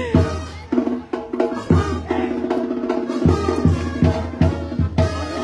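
Banda music playing, with sustained pitched lines over a low steady bass and a regular beat of drum hits.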